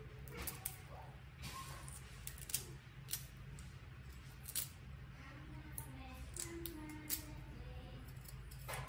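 Kitchen knife peeling and cutting a crisp broccoli stalk against a wooden cutting board: about ten sharp, irregular crunchy cuts and taps, over a faint steady low hum.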